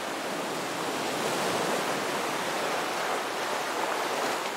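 Ocean surf: a steady, even wash of breaking waves.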